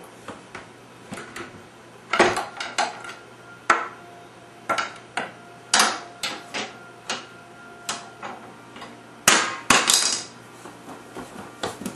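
A toddler banging a spoon: irregular sharp knocks and clanks, about a dozen, several leaving a brief metallic ring from a stainless steel bowl. The hardest run of hits comes near the end.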